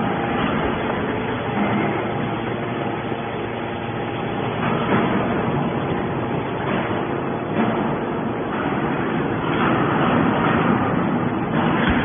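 Hydraulic scrap metal baler running: a steady mechanical drone with a constant hum from its motor and hydraulic pump as the ram pushes a compressed bale of metal turnings out of the chamber.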